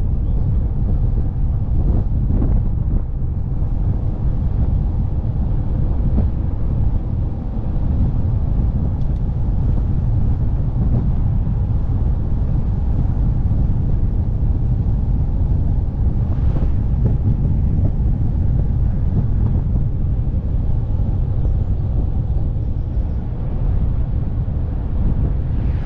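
Steady low rumble of a velomobile on the move, with road noise and wind buffeting the microphone.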